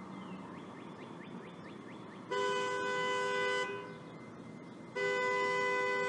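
Vehicle horn sounding twice: a blast of just over a second, then a second, longer blast starting near the end that keeps going. It is a two-note horn, two steady pitches sounding together.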